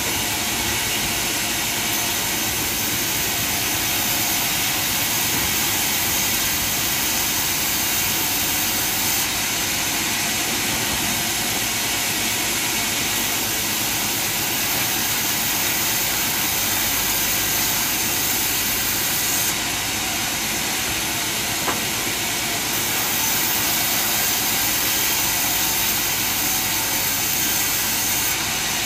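Large sawmill band saw ripping lengthwise through a long timber beam as it is fed past the blade: a steady, unbroken hiss of blade through wood over the running machine.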